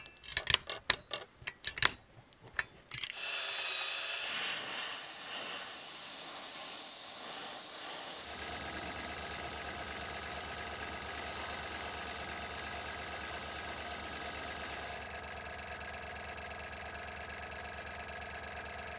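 Sharp metal taps of a pointed punch on a galvanized-sheet lure blank against a steel block, then a steady hiss. About eight seconds in, the even hum of a small motor joins the hiss and keeps running.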